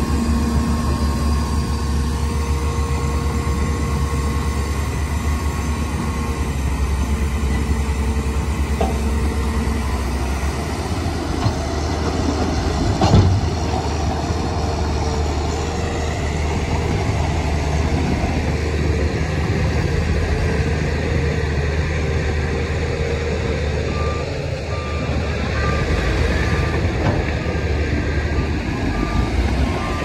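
Heavy diesel earth-moving machinery running steadily, with a single sharp clank about 13 seconds in. Near the end a reversing alarm starts beeping about once a second.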